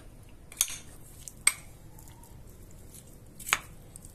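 Metal spoon clicking against a ceramic dish while stirring raw shrimp in their marinade: a few sharp clicks with faint handling in between, the loudest about three and a half seconds in.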